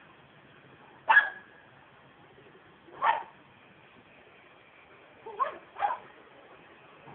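A small dog barking: four short barks, two single ones about two seconds apart, the first the loudest, then a quick pair near the end.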